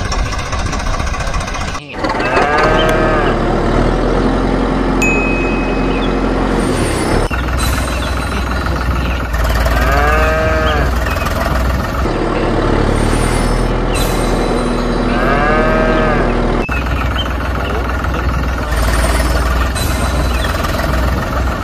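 A cow mooing three times, about 2, 10 and 15 seconds in, each call rising then falling in pitch, over a loud, steady low rumble.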